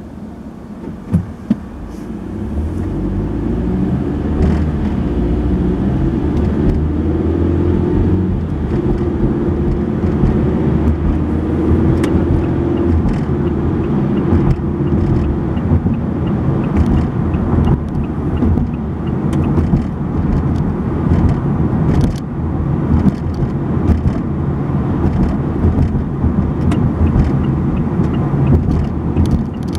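A car pulls away from a stop and drives steadily, heard from inside the car: engine and tyre noise grow louder over the first few seconds and then hold steady. There are two sharp knocks about a second in, and small rattling clicks now and then.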